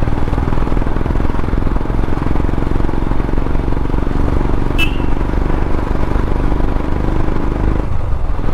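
Motorcycle engine running steadily under way, mixed with road and wind noise on the bike-mounted camera's microphone. The engine note eases off near the end.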